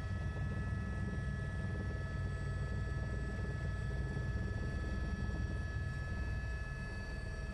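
Helicopter heard from inside the cabin on approach to landing: a steady low rotor and engine rumble with a constant high turbine whine over it.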